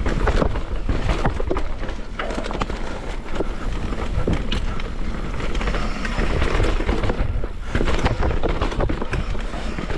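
Downhill mountain bike running over rough trail: wind buffeting the microphone as a steady low rumble, with tyres on dirt and the bike rattling in many sharp knocks.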